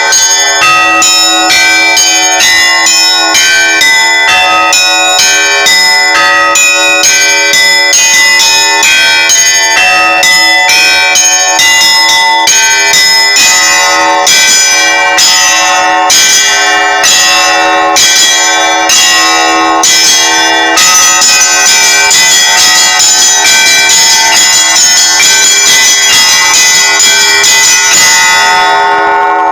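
Orthodox church bells rung together in a festal peal: several bells struck in a quick, dense, overlapping rhythm over a steady lower bell tone, growing fuller and more continuous in the last third.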